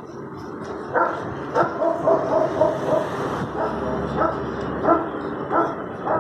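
A dog barking repeatedly, a string of short barks at about two a second, starting about a second in.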